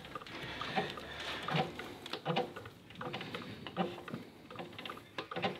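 Scattered light metallic clicks and knocks of hand tools and a drill chuck being handled at a metal lathe while one thread-cutting tap is swapped for the next in a brass workpiece.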